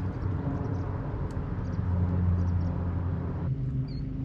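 Steady low outdoor rumble, thinning about three and a half seconds in, with a few faint, short high chirps near the end.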